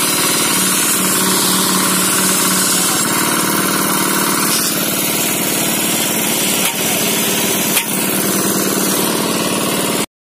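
An engine running steadily under a dense hiss, with two brief knocks in the second half; it cuts off abruptly near the end.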